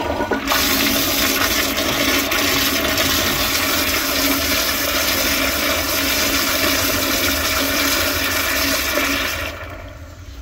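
American Standard Madera toilet flushing: a loud, steady rush of water that falls off sharply about nine and a half seconds in.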